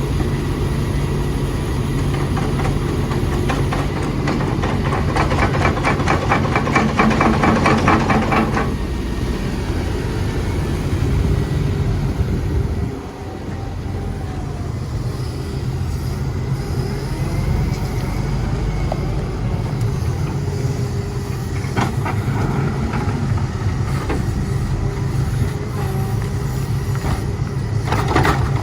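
Volvo excavator's diesel engine running steadily. From about four seconds in, a fast rattling clatter lasts some four seconds, and a few single knocks come near the end.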